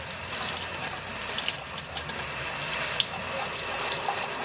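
Tap water running from a faucet, the stream splashing off a small countertop sample held in it and into the sink, with a few sharper splashes.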